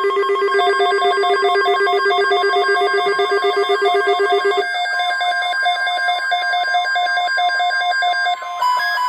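Electronic alert tones: a loud, rapid, ringing trill on several pitches at once, with no speech. The pattern shifts to a new set of pitches about halfway through and changes again near the end.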